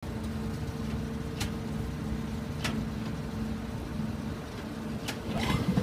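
Belt conveyor running under an overhead electromagnet: a steady mechanical rumble with a steady hum, and three sharp clicks. Near the end a rising whine and louder clatter begin.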